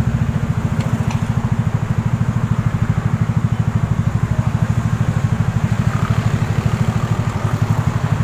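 A vehicle engine idling steadily: a loud, even, fast low throb of about a dozen pulses a second.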